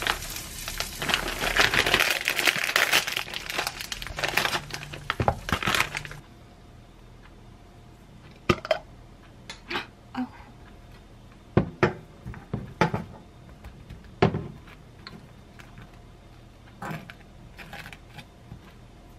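Plastic bread packaging crinkling loudly as it is handled, for about the first six seconds. Then a quieter stretch of scattered short clicks and light knocks as a knife dips into a glass jar of basil pesto and spreads it on a slice of bread.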